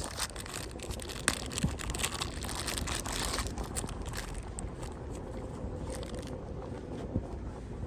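Plastic packaging crinkling and rustling as small electronic parts are handled, with scattered clicks over the first few seconds, then quieter handling.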